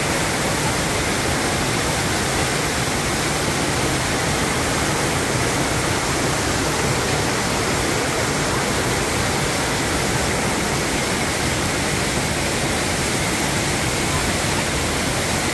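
Waterfall pouring down a rock face and cascading over boulders: a steady, even rush of water.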